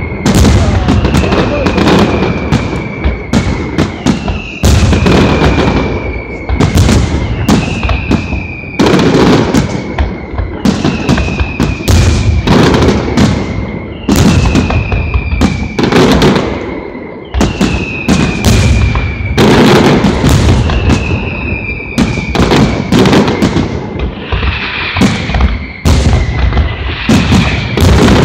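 Aerial fireworks display: a rapid, continuous run of shell bursts and crackling bangs with no pause. A high tone that slides down slightly in pitch recurs about every two seconds.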